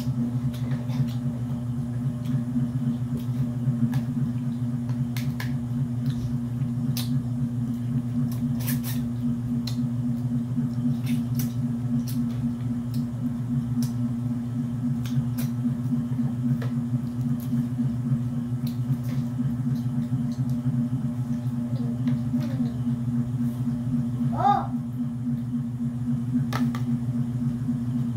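A steady low hum, like an electric fan motor running, under scattered sharp clicks and cracks as a cooked mud crab is picked apart and eaten by hand. A brief vocal sound about twenty-four seconds in.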